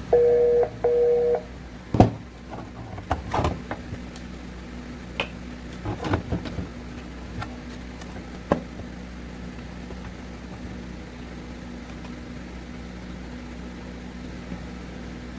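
Bluetooth speaker giving two short two-note beeps. Scattered clicks and knocks follow over a steady low hum.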